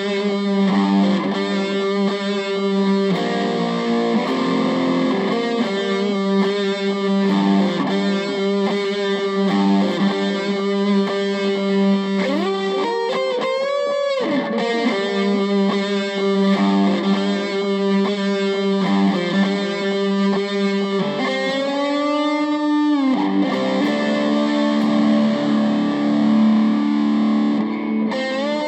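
Epiphone Les Paul Special VE electric guitar played through effects with some distortion: sustained notes over a long-held low note, with wavering string bends about halfway through and a pitch glide about three quarters of the way in.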